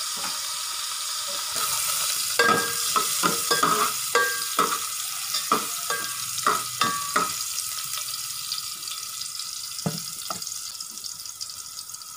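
Sliced garlic and ginger sizzling in hot oil in an aluminium pot as they fry toward golden brown. A metal slotted spatula scrapes and clinks against the pot again and again from about two seconds in to about seven seconds, then once or twice more near the end.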